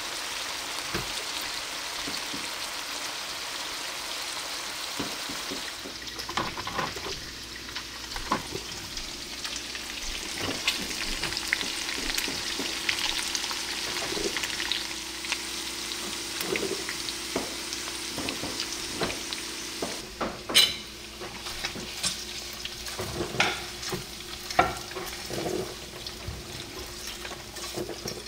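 Bacon and chunks of duck breast sizzling and crackling in bacon grease in a frying pan, with scattered clicks and knocks from about six seconds in.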